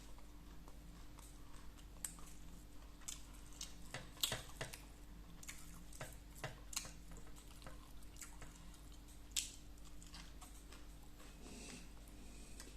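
Faint close-up eating sounds: a person chewing a mouthful of koi khom, a raw-meat salad, with irregular wet mouth clicks and smacks. A steady low hum runs underneath.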